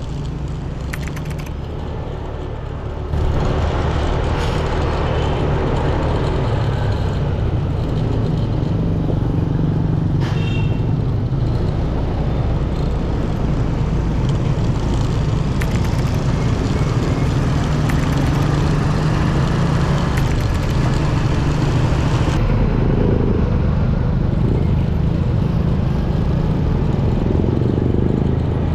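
Steady road traffic noise with a low engine rumble from passing vehicles, getting louder about three seconds in.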